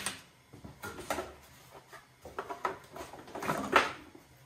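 Packaging being handled: plastic bags crinkling and cardboard shifting, with scattered light knocks, the loudest a little before the end.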